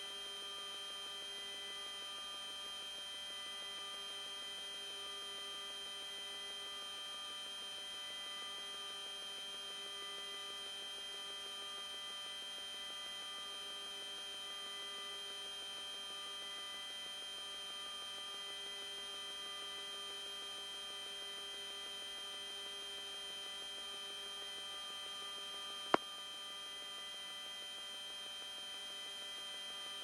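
Steady electrical hum made of many steady tones at once. One sharp click comes a few seconds before the end.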